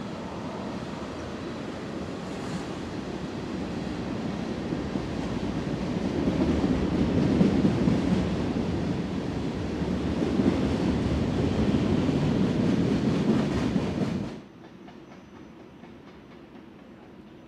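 A train rolling past on the rails, its rumble growing louder over several seconds, then cutting off suddenly near the end, leaving only a quiet background.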